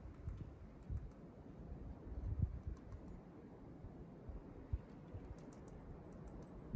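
Small wild birds moving about close by: faint, irregular soft taps and thumps with scattered very faint high-pitched chips, and one short sharp call at the very end.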